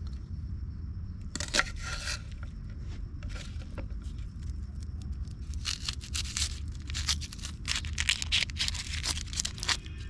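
Irregular rustling and scraping in short bursts, sparse at first and coming thick and fast in the second half, over a steady low rumble.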